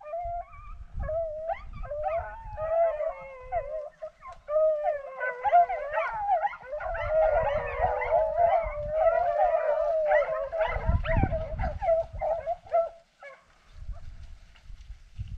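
Hunting dogs baying in long, wavering howls as they run a rabbit on its scent. Several voices overlap in the middle, and the baying stops about thirteen seconds in.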